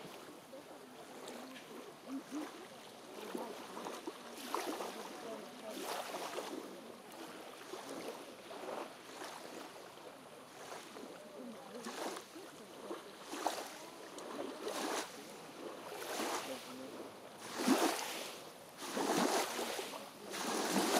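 Small waves lapping on a pebbly lake shore: repeated soft rushes of water washing in over the gravel every one to three seconds, the strongest near the end.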